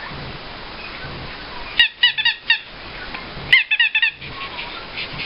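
Squeaky toy squeezed in two quick runs of four or five short, high-pitched honking squeaks each, about two seconds in and again a second and a half later.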